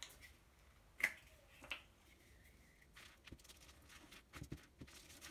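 Faint handling sounds of craft materials on a tabletop: a few soft clicks and taps, the sharpest about a second in, with a scattering of smaller ones later.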